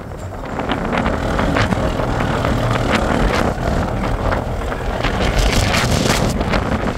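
Wind buffeting the microphone over a steady low rumble, with repeated short rushes of noise.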